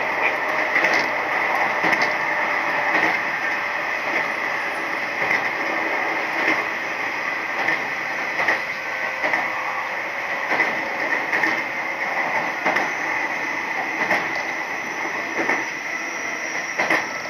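Nishitetsu 3000 series electric train running at speed, heard from inside the passenger car: a steady running noise with a distinct high hum, and the wheels clicking over rail joints about once a second.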